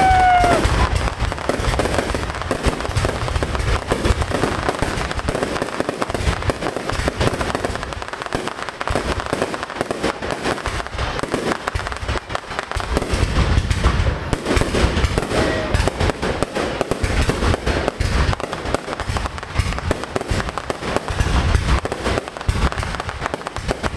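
Aerial fireworks display: dense, continuous crackling and popping from bursting shells, with spells of deep booms.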